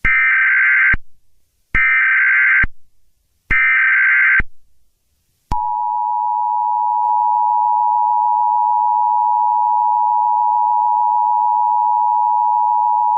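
Emergency Alert System alert tones. First come three short bursts of SAME header data, each about a second long, then the steady two-tone EAS attention signal, which starts about five and a half seconds in and holds.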